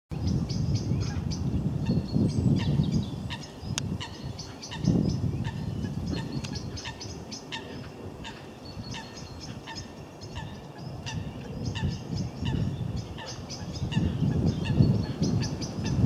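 Birds calling over open water in many short, quick notes repeated throughout, over a low rumble of wind on the microphone that swells a few times.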